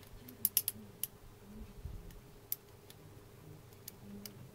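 Small metallic clicks of a lock pick and tension wrench working the pins of a Draper Expert six-pin padlock with spool pins: three clicks close together about half a second in, then a few scattered single clicks.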